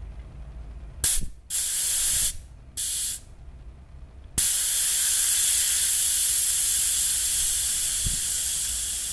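Compressed air at about 7 bar hissing out through a bicycle tyre valve: three short bursts in the first few seconds, then a continuous hiss from about four seconds in, slowly fading as the tyre deflates.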